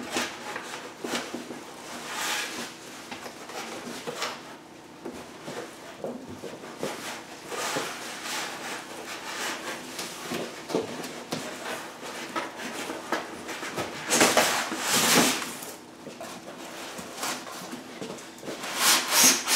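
Large cardboard TV carton sliding down over a packed base of foam and cardboard inserts, with cardboard rubbing and scraping in irregular bursts. The loudest scrapes come about fourteen to fifteen seconds in and again near the end.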